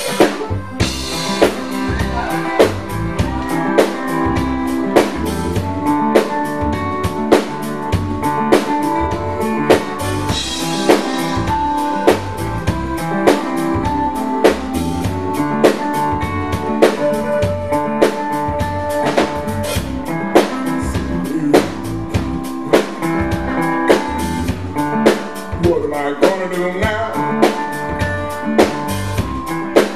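Live blues band playing an instrumental passage: electric guitar over bass guitar and a drum kit keeping a steady beat.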